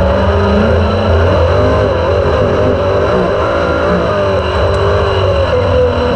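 Super sprint race car's engine heard through an onboard camera mounted on the car, its pitch rising and falling repeatedly as the throttle is worked, over a steady low rumble.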